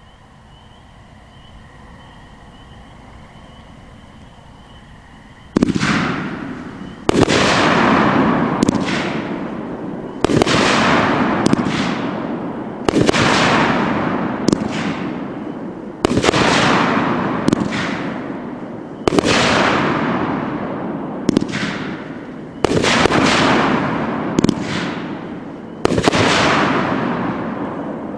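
OMG Fireworks 'Pyrocist' 25-shot 500-gram cake firing. After a quieter lead-in of about five seconds, shots go off roughly one every second and a half, each a sharp report that trails off over a second or so.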